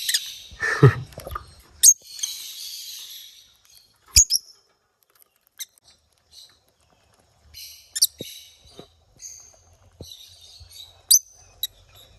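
Small parrot hen guarding her nest box: scattered high-pitched squeaky chirps and hissy calls, with several sharp taps, the bird biting the wooden box as a warning to keep away from her eggs.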